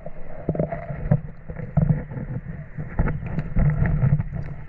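Water splashing and sloshing as a monofilament gill net is pulled in by hand, with irregular small splashes and knocks.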